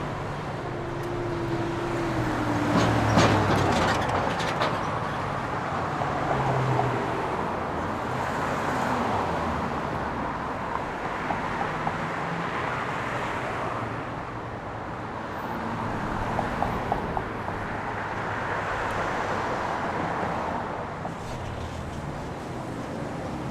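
Busy city intersection: steady traffic noise from cars and buses passing, with a short cluster of sharp knocks about three seconds in.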